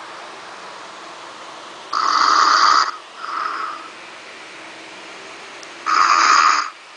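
A man snoring in his sleep: two loud snores about four seconds apart, each followed by a shorter, softer breath out.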